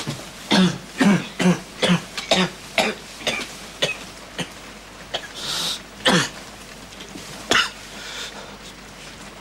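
A sick man's coughing fit: a run of about eight quick coughs over the first four seconds, then two more single coughs a few seconds later.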